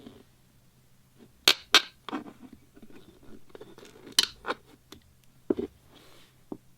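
Upholstery hand tools at work: a series of sharp clicks and snaps with softer scraping between. The loudest are a pair of clicks about a second and a half in and another about four seconds in.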